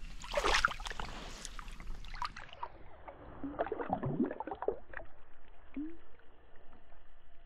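Shallow creek water splashing and sloshing as a released Australian bass swims off from the bank: a cluster of splashes in the first couple of seconds and a few more around the middle.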